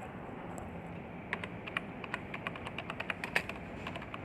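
Typing on a computer keyboard: a quick, irregular run of key clicks, several a second, that starts about a second in, entering text into a form field.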